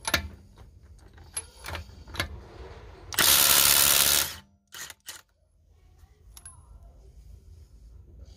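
Milwaukee M18 Fuel Gen 3 impact driver hammering for about a second, about three seconds in, breaking a car wheel's lug nut loose at its top rate of 4,300 impacts per minute. Light metal clicks of the socket on the nut come before it, and a few more clicks follow.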